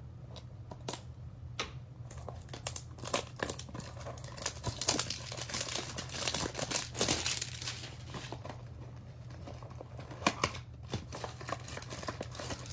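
A cardboard trading-card hanger box and its packaging being torn open and handled: crinkling and tearing with sharp clicks, busiest in the middle and again near the end.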